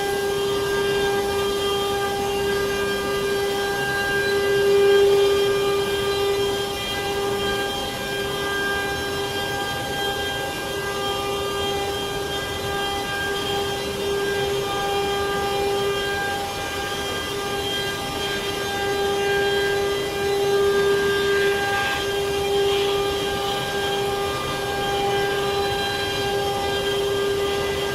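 CNC wood router spindle running with a steady, high-pitched whine at a constant pitch, over a continuous hiss.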